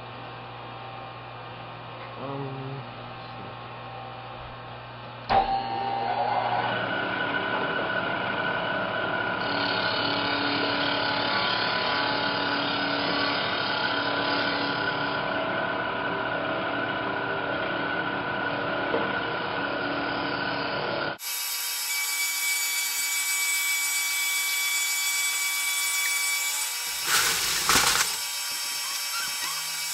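Milling machine switched on with a click about five seconds in, then running steadily with a whine of several tones as its cutter machines a wooden block. About two-thirds of the way through the sound changes abruptly to a brighter machining sound, with a brief louder burst near the end.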